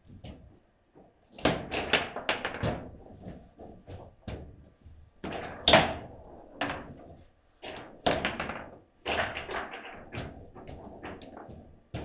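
Table football in fast play: sharp knocks and clacks of the ball being struck by the figures on the rods and hitting the table, in irregular clusters, with the loudest crack near the middle.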